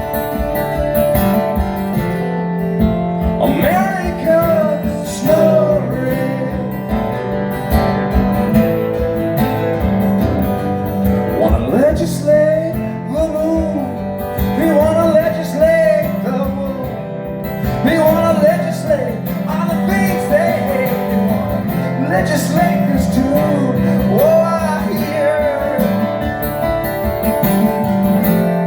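Live music: acoustic guitar played under a man singing.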